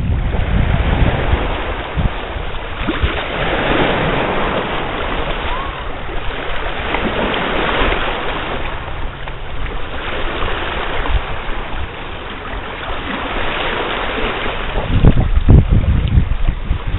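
Gusting wind buffeting the microphone over small waves lapping against a rocky shore, with the heaviest wind buffets near the end.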